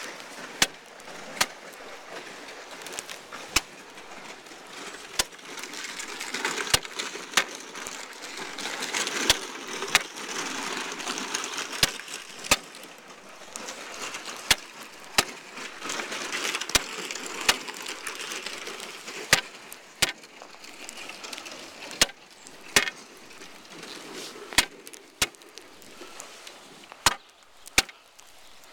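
Steel ice spud bar striking lake ice in quick double jabs, a pair every two to three seconds, testing the ice ahead for thickness; each sharp strike chips the ice, with a rustling noise between the strikes.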